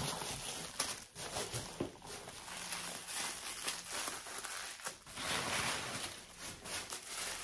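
Rustling and crinkling of packaging, with small irregular clicks and crackles, as wrapped items are handled and taken from a box.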